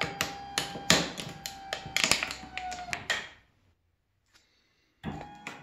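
An aluminium soda can crackling and crumpling as a linear-actuator vise crushes it flat, over the steady whine of the actuator motor, which dips in pitch as the can gives way. The sound cuts off about three and a half seconds in, and a fresh run of crackling with a steady tone starts about a second and a half later.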